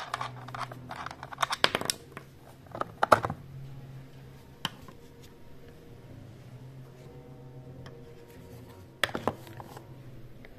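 Hard plastic clicking and scraping as the chainsaw's side sprocket cover is handled and lifted off by hand. A cluster of knocks and scrapes comes in the first three seconds, a single click near the middle, and another short cluster near the end.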